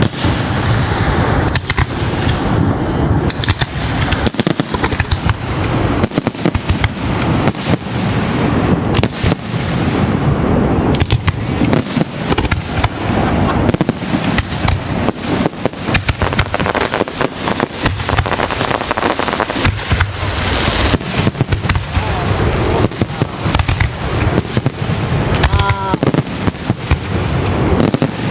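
Fireworks show in full barrage: a dense, unbroken run of bangs and crackling bursts going off in quick succession throughout.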